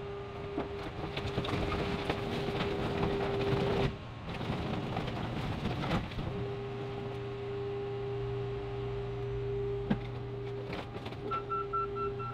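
A car crusher flattening a van. The crusher's hydraulic power unit runs with a steady whine while window glass shatters and sheet metal crackles and crumples under the descending lid, heaviest in the first four seconds. The whine drops out for about two seconds, then resumes, with a couple of sharp pops later and rapid beeping near the end.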